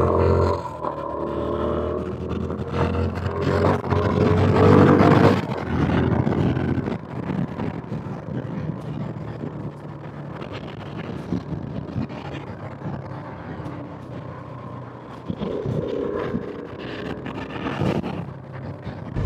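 Motorcycle on the move, heard through a wireless lapel mic inside the rider's helmet: the engine runs over wind noise and rises in pitch as it accelerates a few seconds in. After that it settles to quieter, steady engine, road and wind noise.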